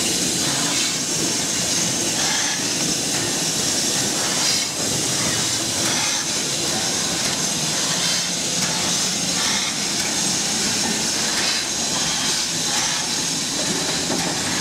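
Steam locomotive 70000 Britannia, a BR Standard Class 7 Pacific, moving slowly with its cylinder drain cocks open. There is a constant loud steam hiss, with slow, even chuffs about once a second.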